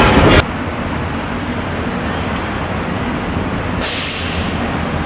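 Road traffic: a steady din of engines and tyres, with a sudden sharp hiss from a bus's air brakes about four seconds in.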